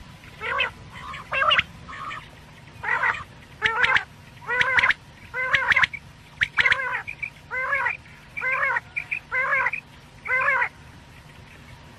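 Recorded quail (batair) calls, the kind played as a lure in quail hunting: about a dozen short calls repeated at roughly one a second.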